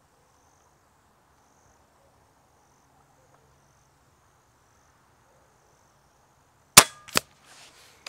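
Hatsan Flash Pup .22 PCP air rifle firing a single shot, a sharp crack about two-thirds of the way in, followed less than half a second later by a second short crack.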